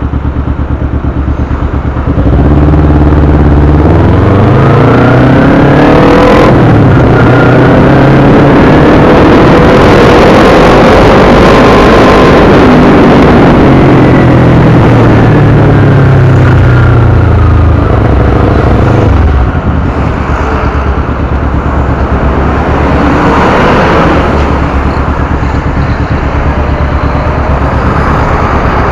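Motorcycle engine heard from on the bike: idling, then pulling away about two seconds in with the engine note rising through the revs. It stays loud while riding, then eases off and settles lower about two-thirds of the way through.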